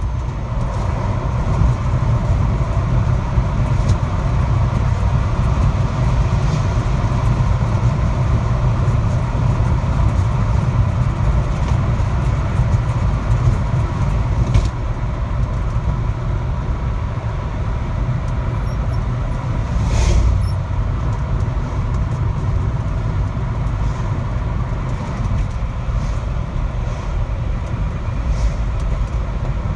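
Steady road and engine rumble inside a moving car's cabin, with a faint steady whine running through much of it and a single short knock about twenty seconds in.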